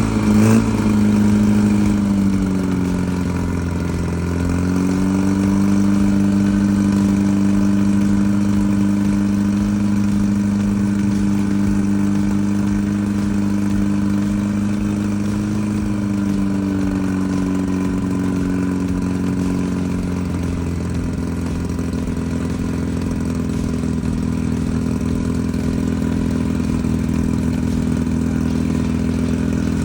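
Newly built 1776cc air-cooled VW flat-four engine running at a raised, steady speed. Its speed dips slightly, climbs again about four seconds in, then eases down to a lower steady speed between about sixteen and twenty seconds in.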